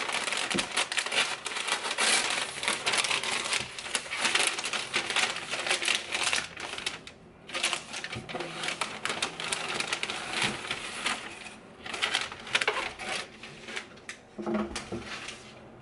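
Tissue paper crinkling and rustling as it is torn open and unfolded from around a stack of folded clothes in a cardboard box. The rustling comes in a dense, crackly run with two short lulls.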